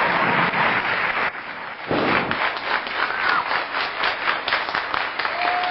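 Audience applause. It drops away briefly about a second and a half in, then resumes with many distinct hand claps.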